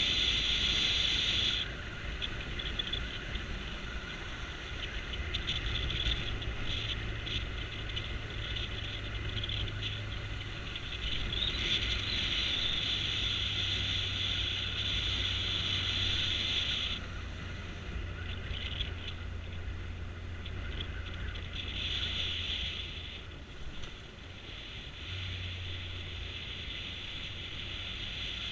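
Motorcycle riding along a road, heard from a camera mounted on the bike: a low steady engine hum under wind rushing past the microphone, the hiss swelling and dropping several times.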